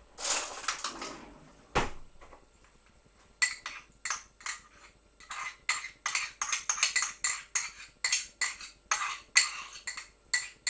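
A metal teaspoon scraping and clinking against a small pot, over and over, as pesto is scooped out onto a bowl of pasta; several quick clicks a second from about a third of the way in. Before that, a brief rustle and a single knock.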